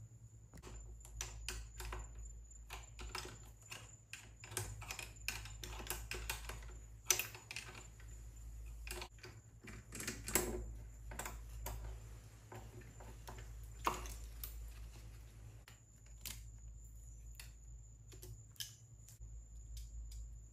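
Irregular light clicks and small metallic knocks from hands and tools working on a 125cc pit bike's carburetor and intake, taking the carb off for cleaning.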